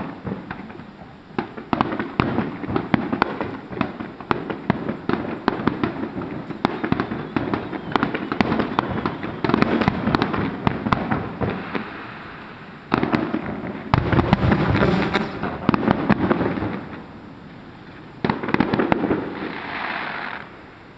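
Fireworks going off: a dense, continuous run of sharp cracks and pops, with several louder flurries, the last one near the end.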